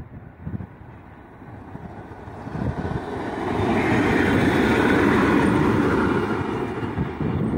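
TEM18DM diesel-electric shunting locomotive running light, with no train, passing close by: its engine and wheels on the rails grow louder from about two and a half seconds in, loudest as it goes past about four to six seconds in.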